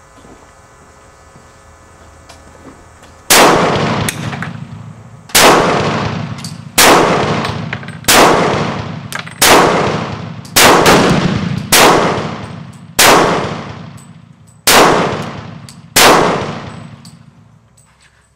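Glock 27 subcompact pistol in .40 S&W firing a string of about ten single shots at a steady pace, roughly one every second and a half, starting about three seconds in. Each loud crack is followed by a long echo that fades before the next shot.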